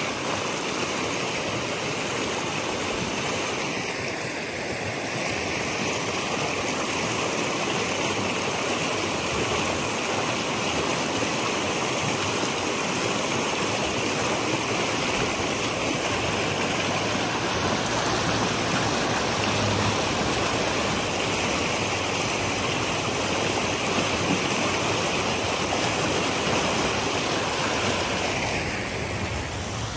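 Fast, shallow creek water rushing and splashing over rock ledges in a small rapid: a steady, even rush.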